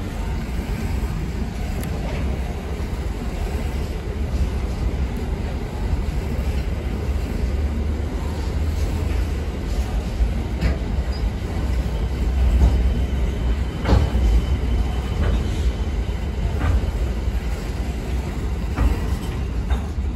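Container freight wagons rolling past at close range: a steady rumble of steel wheels on rail, broken by a few sharp clicks and knocks as the wagons pass.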